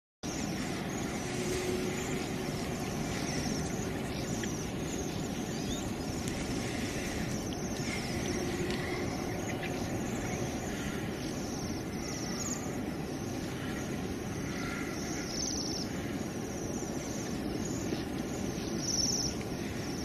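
Outdoor ambience: a steady hiss and low rumble, with faint, short high chirps from small birds scattered through it.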